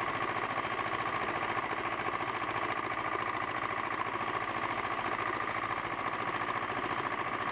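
A machine runs steadily on the flight line: an engine with a rapid, even pulse and a steady whine on top.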